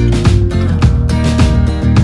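Background music: a strummed acoustic-guitar track with a steady beat.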